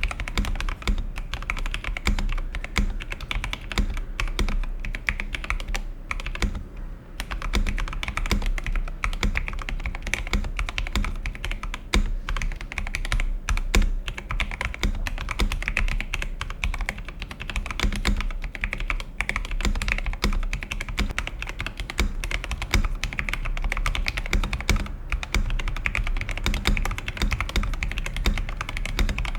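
Fast, continuous typing on an Epomaker TH80 mechanical keyboard with Gateron Pro Brown tactile switches: a dense stream of key clicks, with a brief lull about seven seconds in.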